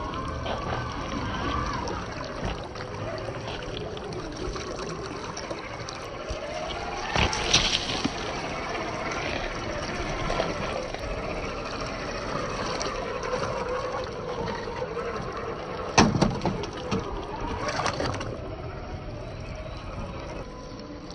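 Electric motor of a 1/10-scale RC crawler whining, its pitch rising and falling as the throttle changes, over a steady bed of water sound. There are loud sudden hits about a third of the way in and again near the three-quarter mark.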